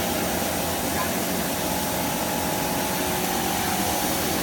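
A copper rod breakdown wire drawing machine running steadily under test, a constant mechanical drone with a faint whine held through it.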